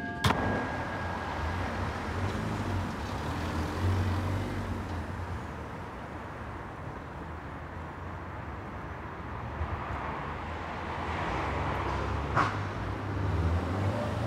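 Street traffic ambience: a steady hum of road noise with vehicles passing, swelling about four seconds in and again near the end. A sharp click comes right at the start and a short tick about twelve seconds in.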